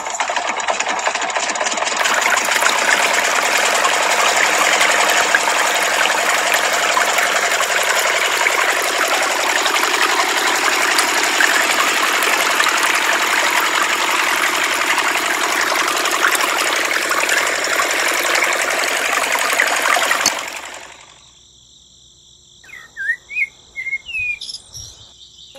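Small motor of a toy belt-driven water pump running steadily, mixed with water pouring and splashing from its spout. The sound cuts off about twenty seconds in, leaving a few faint bird chirps.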